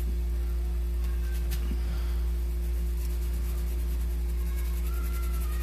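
Steady low electrical hum with a couple of fainter steady tones above it, and a faint click about one and a half seconds in.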